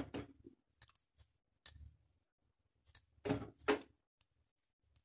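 Cooked curd rice being scooped by hand from a steel pot into a small serving bowl: a few short, soft scraping and knocking sounds, the loudest two close together about three and a half seconds in.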